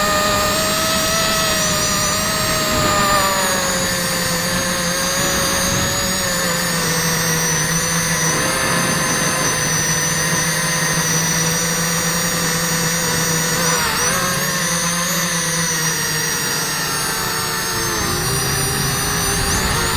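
Quadcopter's electric motors and propellers whining in flight, several pitches sliding up and down together as the throttle changes, with dips about two-thirds of the way through and again near the end.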